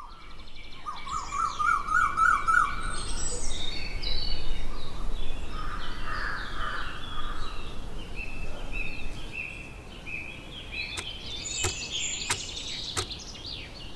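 Morning birdsong ambience: many small birds chirping and trilling together, with a few sharp clicks near the end.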